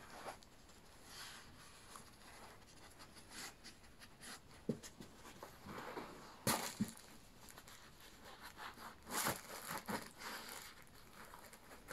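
A greyhound nosing and pawing at a rainbow plush toy on a sheet-covered dog bed: soft, scattered rustles and crinkles of fabric, with a few louder scuffs about halfway through.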